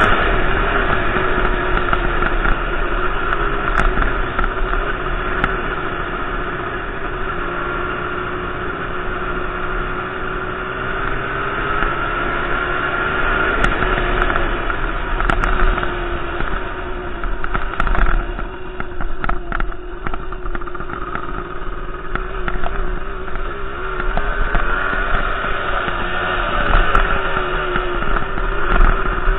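Motorcycle engine running as the bike rides along, heard from a helmet-mounted camera. The engine note eases off about two-thirds of the way through and picks up again near the end.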